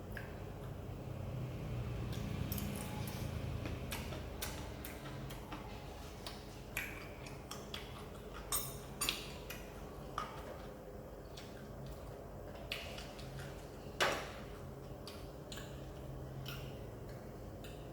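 Scattered clicks and taps of eating utensils against dishes, the loudest one about fourteen seconds in, over a faint steady low hum.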